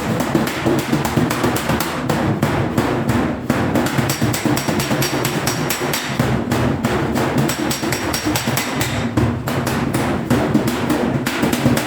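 Hammer striking sheet steel in a quick, continuous run of blows.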